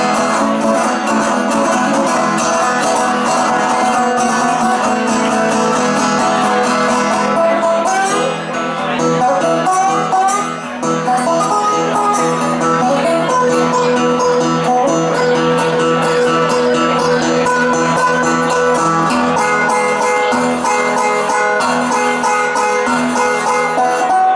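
Solo instrumental on a plucked, guitar-type string instrument, with ringing held notes over a steady low drone.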